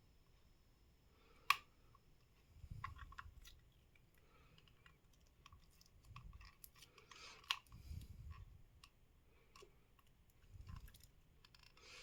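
Faint, scattered small plastic clicks and handling sounds as a wireless mouse's plastic shell is worked apart, its screw already out but the halves held by old tape. The sharpest click comes about a second and a half in, with dull low knocks of handling among the clicks.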